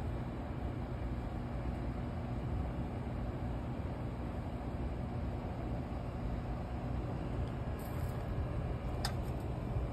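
Steady low background rumble, with one brief click about nine seconds in.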